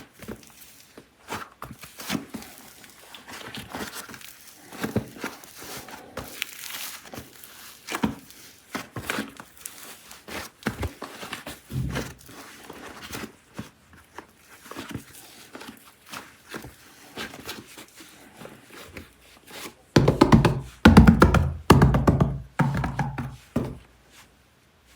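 Plastic clay containers and soft air-dry clay being handled: irregular crinkles, light taps and small clicks. About twenty seconds in, a few seconds of louder music take over.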